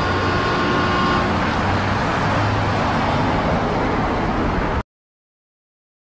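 Street traffic: road vehicles running and passing, with a steady whine that stops about a second in. The sound cuts off abruptly near the end.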